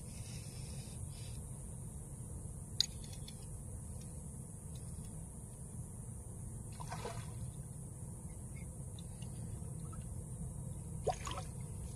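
Water lapping and trickling against a small boat's hull over a steady low rumble, with one sharp click about three seconds in and two brief rushes of noise near seven and eleven seconds.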